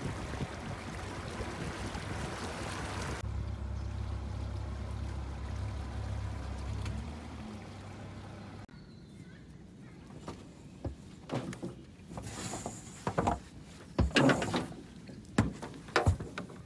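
A small aluminium boat moving on the water with a low steady hum. About eight and a half seconds in the sound cuts to a quieter scene of irregular knocks and scrapes, loudest about fourteen seconds in, as the hull meets the muddy, leaf-covered bank.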